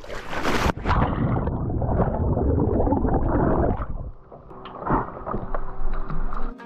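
A diver drops off a boat into the sea: a sharp splash of entry, then about three seconds of muffled rushing and bubbling under water, easing into lighter, intermittent splashing and lapping at the surface.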